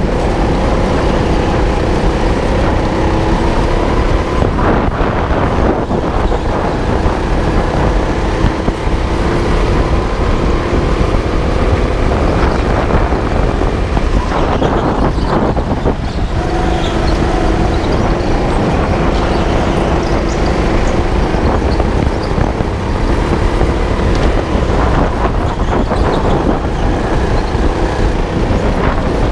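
Indoor rental go-kart running flat out on a lap, heard from a camera mounted on the kart: a loud, steady drive sound over a heavy low rumble. Its pitch drifts up and down as the speed changes through the corners.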